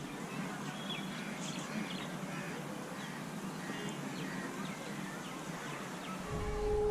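Outdoor ambience with scattered faint bird chirps; about six seconds in a temple bell is struck and rings on with a steady, sustained tone.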